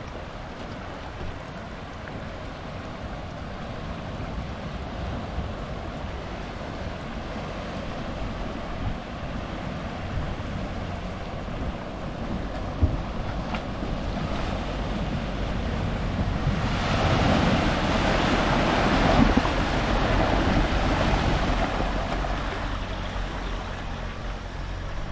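A four-wheel drive wading across a shallow, rocky river: a steady rush of water and splashing that grows louder as the vehicle comes closer, and is loudest about two-thirds of the way in, then eases.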